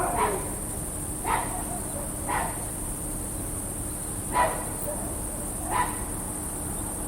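Night ambience: distant dogs barking, five single barks at irregular gaps of one to two seconds, over a steady high chorus of chirping crickets.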